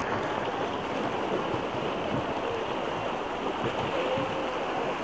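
Choppy sea water splashing and churning around the boat: a steady, noisy wash.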